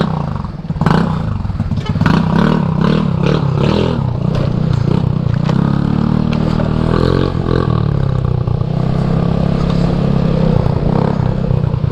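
150cc GY6 scooter engine running as the scooter pulls away and rides off, its pitch rising and falling with the throttle. A few knocks and clatters in the first second or so.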